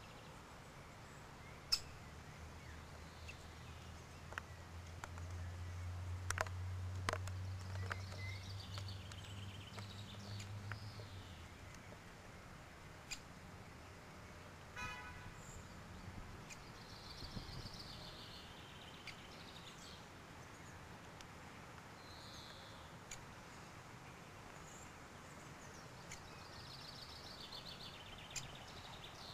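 Birds singing outdoors: several short, high song phrases repeat every several seconds, with a few single sharp ticks between them. A low rumble swells early on and fades away before the middle.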